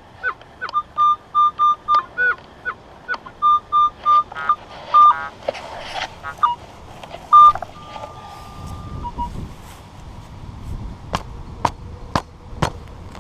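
Minelab CTX 3030 metal detector sounding a target over and over: short high beeps, some of them sliding in pitch, as the coil sweeps over a coin-sized target about four inches down, then one longer steady tone. A few sharp knocks follow near the end.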